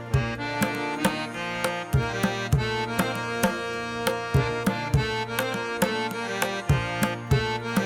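Background music: a melody of sustained notes over steady, regular percussion strikes.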